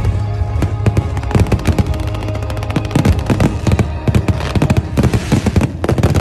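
Aerial fireworks bursting in a rapid, dense string of bangs and crackles, with music playing underneath.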